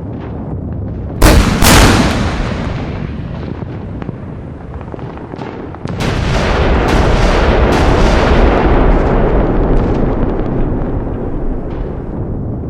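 Gunfire and explosion sounds: two sharp, loud bangs about a second in with a long rumbling decay, then from about six seconds a sustained rumble with a quick run of cracks that fades toward the end.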